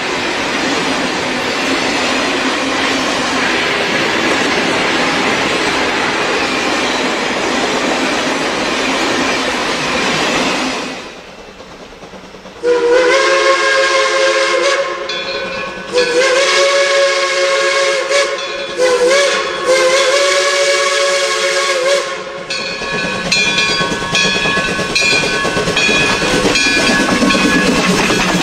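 A locomotive runs with a steady rushing hiss, which fades away about eleven seconds in. Its chord whistle then sounds in several long blasts, several tones at once, with a short blast among them. Near the end the whistle tones carry on more faintly over the running noise.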